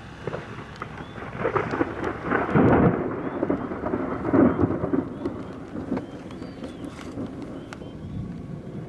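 Thunder following a nearby lightning flash: a rolling rumble that builds about a second in, peaks twice, then dies away.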